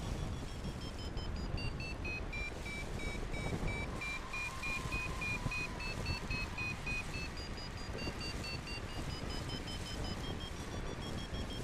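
A paragliding variometer beeping rapidly, its pitch dipping through the middle and climbing again toward the end, the tone that signals climbing in a thermal. Wind rushes on the microphone underneath.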